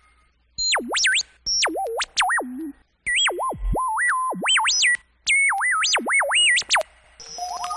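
Synthesized electronic sound effect: phrases of pure tones swooping quickly up and down, broken by short pauses. Near the end it changes to a rapid ticking pattern with rising tones.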